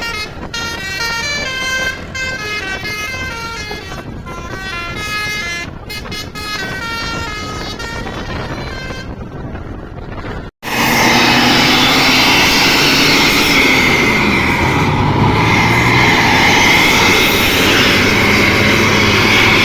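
Bus telolet air horn (Basuri multi-tone horn) playing a tune of quick stepping notes for about ten seconds. Then it cuts off abruptly and a louder, noisier stretch follows, with held horn tones over it.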